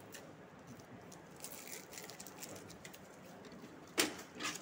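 Faint rustling and small ticks as orange packing tape is peeled off an HP LaserJet printer's plastic casing. About four seconds in there is a sharp plastic clack and a smaller click as the printer's front paper-feed flap is handled.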